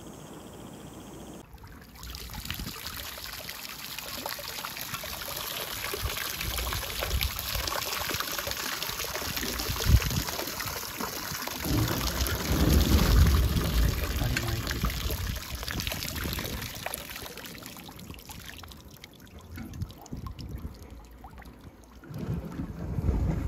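Seawater poured from a container, splashing and trickling, with a few low knocks from handling near the middle. It starts abruptly, swells, then thins to a lighter trickle.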